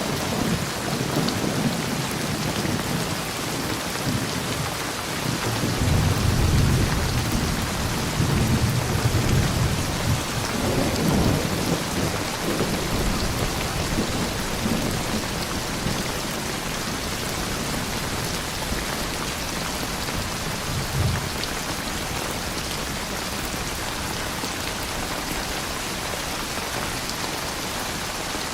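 Steady rain with rolling thunder. Low rumbles build about six seconds in and roll on for several seconds, a shorter one comes about two-thirds of the way through, and then the rain goes on alone.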